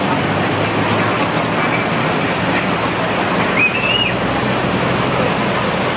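Heavy rain and rushing water on a flooded street as a vehicle drives through the flood, with an engine's low hum underneath. A short high chirp cuts through about three and a half seconds in.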